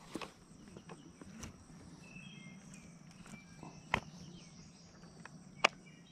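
A few sharp clicks and knocks of stone and a fishing rod's spincast reel as the rod is wedged among rocks, with two louder knocks, one near the middle and one near the end. A steady high drone of insects runs beneath.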